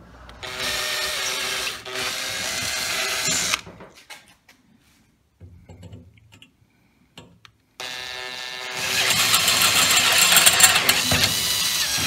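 Cordless drill boring into a steel tube frame with a twist bit: a run of about three seconds near the start, a pause with a few light clicks, then a second, louder run of about four seconds that stops abruptly at the end.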